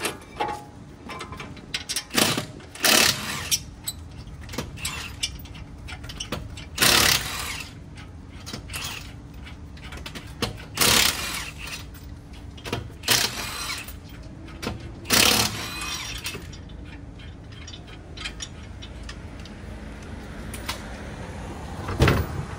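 Several short bursts from a pneumatic impact wrench, spaced a few seconds apart, with smaller clinks and knocks of tools and parts between them.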